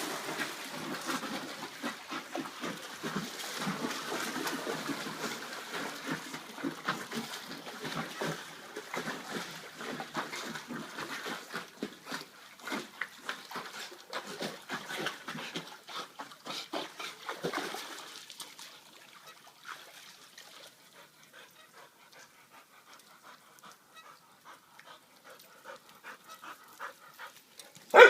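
Dog panting hard as it swims, with water splashing, fading off after about eighteen seconds; one sudden loud sound at the very end.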